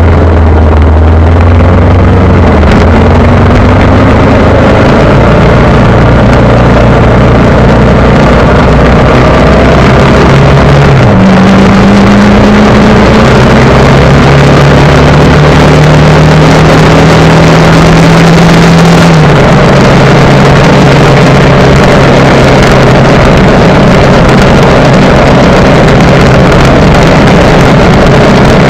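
Vehicle engine running under way, loud, over a steady rushing noise; the engine note steps up about a third of the way through and drops again about two-thirds through.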